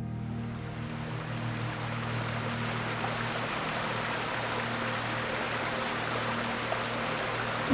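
Rushing stream: an even wash of water running over rocks, with a low steady tone fading away under it in the first half.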